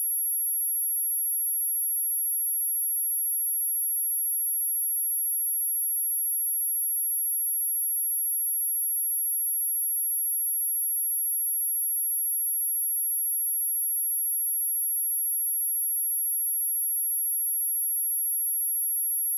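A steady, high-pitched 11257 Hz sine-wave test tone, one unbroken pure tone at a constant level.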